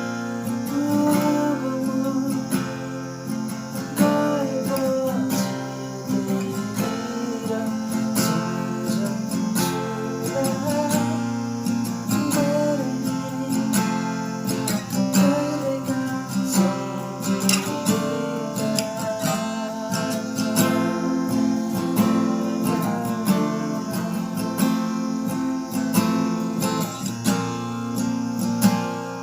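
Acoustic guitar music: chords strummed in a steady rhythm, with a melody line moving above them.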